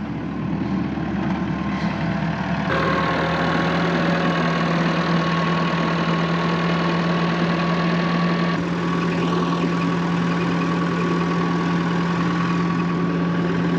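Tractor engine running steadily at a constant speed, a continuous low hum whose tone changes abruptly about three seconds in and again near nine seconds.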